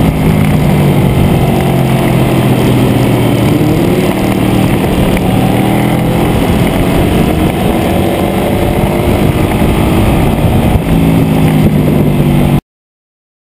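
Triumph 675 inline-triple sport bike engine at racing speed, its pitch rising and falling as the rider works the throttle through the corners, over heavy wind rush on the onboard microphone. The sound cuts off abruptly to silence near the end.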